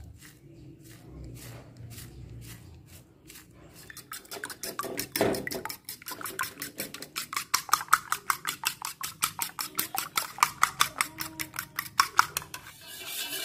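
Metal spoon beating two raw eggs in a ceramic bowl, clinking against the bowl in a rapid, even rhythm of about five strokes a second. The strokes are faint at first and grow louder after about four seconds.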